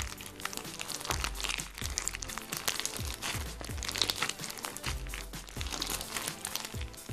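Sticky clear slime packed with small plastic alphabet cube beads being squeezed and kneaded by hand, giving a crunchy crackle of many small irregular clicks as the beads press and shift against each other. Background music with a low bass line plays underneath.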